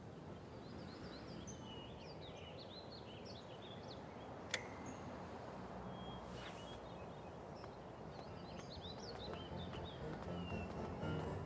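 Small birds chirping in two spells over a steady, low hum of street ambience, with a single sharp click about four and a half seconds in.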